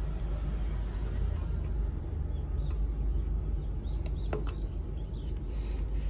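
Plastic star-shaped spoke beads being pressed onto a child's bicycle spokes, giving a few faint clicks, the clearest about four seconds in, over a low steady outdoor rumble.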